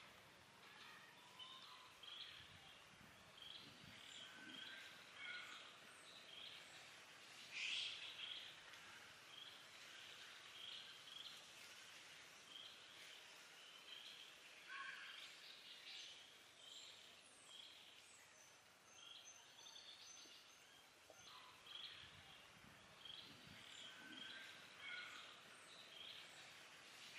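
Faint outdoor ambience with a bird chirping over and over in short, evenly spaced notes, and one louder call about eight seconds in.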